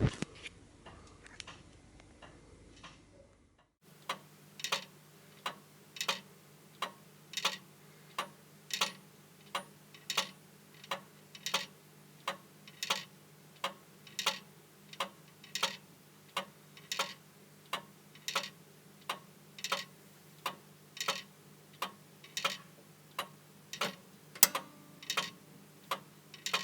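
Gledhill-Brook time recorder clock with an Empire fusee movement, ticking steadily at about one and a half ticks a second. The ticking is faint for the first few seconds, then comes in clearer and louder. One tick near the end is sharper than the rest.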